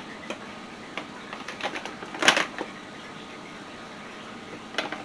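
Plastic measuring cup scooping sweetener out of its container: scattered light clicks and taps, with one louder, short scrape a little over two seconds in.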